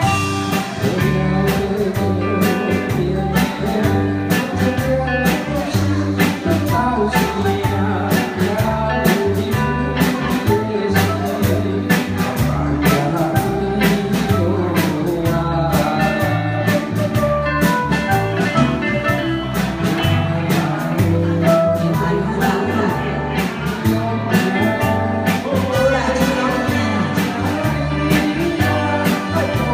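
Live band music from a keyboard and electric guitar over a steady beat, a Taiwanese-language pop song, with singers on microphones over it.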